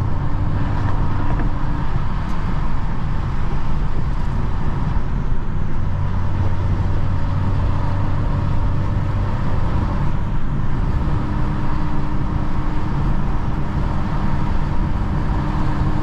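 BMW 435i's turbocharged N55 inline-six running steadily at light cruise, heard from inside the cabin as a low drone mixed with tyre and road noise. The engine is not yet warmed up.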